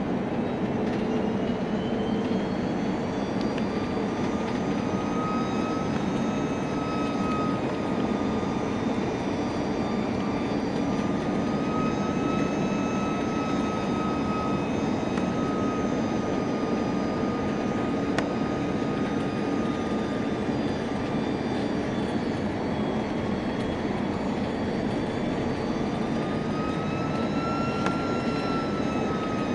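Jet airliner engines heard inside the passenger cabin: a steady low rush with a whine on top that drifts slightly up and down in pitch.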